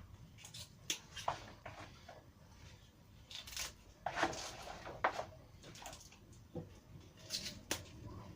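Irregular light clicks, taps and rustles of hands working with leafy greens and kitchen utensils, with a few sharper knocks among them.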